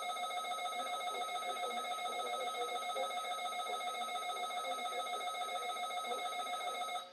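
Weather radio sounding its electronic alert alarm for a Required Weekly Test: one steady, shrill tone with a slight flutter, holding for about seven seconds and cutting off sharply near the end.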